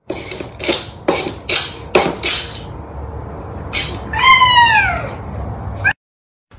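Several short hissing noises in the first two and a half seconds and one more near four seconds, then a domestic cat gives one long meow that falls in pitch. The sound cuts off suddenly just before the end.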